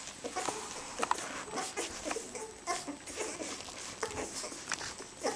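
Two-week-old Welsh springer spaniel puppies nursing: a scatter of short, high little squeaks with quick clicks of suckling throughout.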